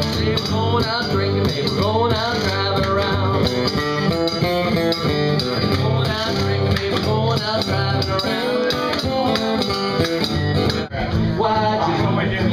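Live acoustic band music: an acoustic guitar strummed under a man singing, with a washboard scraped for rhythm. The music dips briefly about eleven seconds in.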